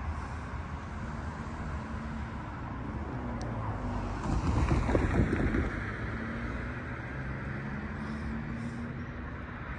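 A steady low engine drone under outdoor street noise, with a louder rushing swell lasting about a second, roughly halfway through.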